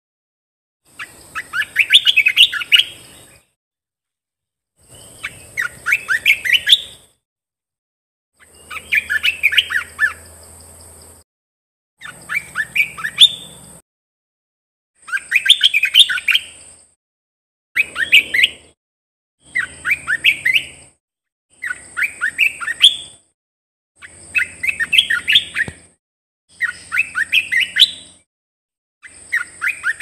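Olive-winged bulbul singing: about eleven short phrases of quick, bubbly rising notes, each one to two seconds long, with brief silences between them.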